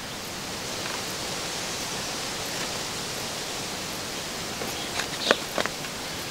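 A steady, even hiss, with a few short clicks about five seconds in.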